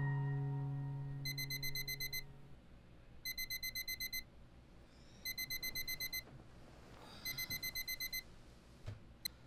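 Digital clock radio alarm beeping: four bursts of rapid beeps, about ten a second, one burst every two seconds. Near the end come a couple of sharp clicks as it is switched off.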